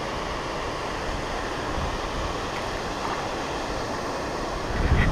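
Steady wind noise on the microphone, with heavier low gusts buffeting near the end.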